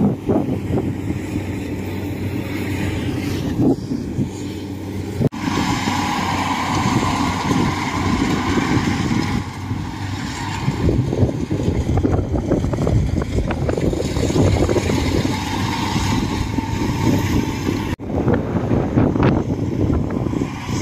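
Kubota DC-70 rice combine harvester running steadily as it cuts and threshes rice. The sound breaks off sharply for an instant twice, about five seconds in and again near the end.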